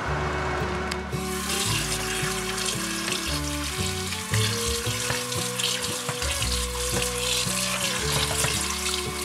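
Cold tap water running onto freshly boiled shell pasta in a stainless-steel colander in a sink, starting about a second in, rinsing the pasta to stop it cooking.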